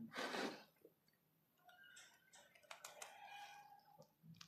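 Near silence, with a few faint clicks and a brief faint hum about three seconds in.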